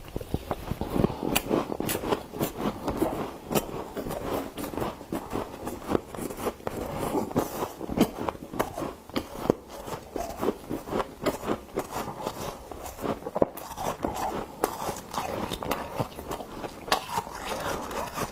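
Frost being scooped and scraped, a continuous run of small crunches and crackles.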